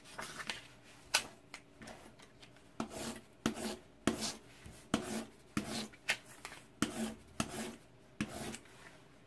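3D-printed rotary cutter being worked by hand, making a run of short rubbing, scraping strokes. They start with a few scattered strokes and settle into a quicker series, roughly one every two-thirds of a second, stopping shortly before the end.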